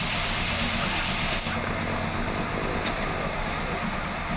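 A standing 1944 Lima-built steam locomotive, running at rest with a steady hiss of steam over a low hum. A single knock comes about a second and a half in, and a faint high, steady whistle-like tone joins the hiss from then on.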